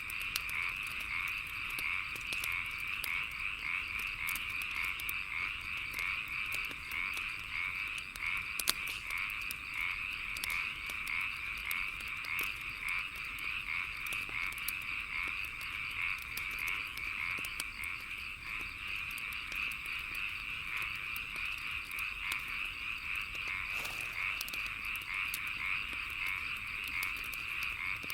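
A dense chorus of frogs calling without a break, with a wood fire crackling in sharp scattered pops throughout.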